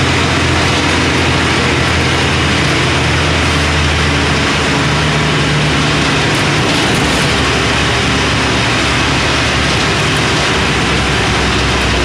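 Mercedes-Benz OF 1318 bus's six-cylinder diesel engine running, with its low note dropping in pitch about five seconds in.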